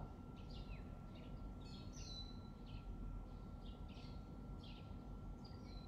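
Birds chirping: scattered short high calls, a few sliding downward in pitch, over a steady low background rumble of outdoor ambience.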